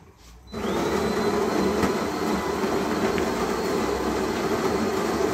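De'Longhi automatic bean-to-cup coffee machine starting up about half a second in after its button is pressed, then running with a steady, loud mechanical whirr as it works on a coffee.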